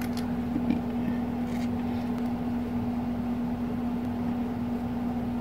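A steady background hum holding one constant low pitch, with a few faint light clicks about a second in.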